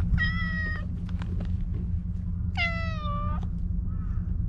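White stray cat meowing: two clear meows, the second sliding slightly down in pitch, and a faint third call near the end, over a steady low rumble.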